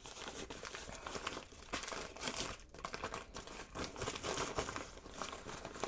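Thin plastic wrapping around a camera lens crinkling and rustling as hands handle and unfold it, with irregular crackles throughout.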